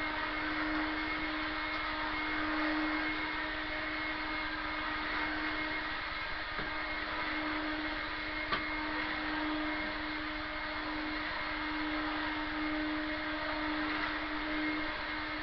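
Refurbished Hoover Hooverette vacuum cleaner running steadily at full speed, a steady motor hum with a higher whine over a rush of air, with a couple of faint ticks.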